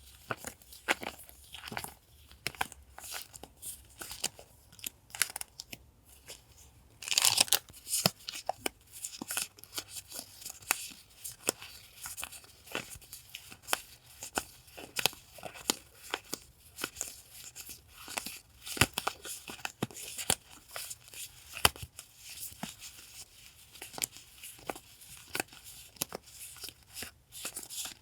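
Paper goods and stickers being unpacked and handled: quick, uneven rustling, crinkling and tearing of paper and packaging, with many small clicks and taps. A louder, longer rustle comes about seven seconds in.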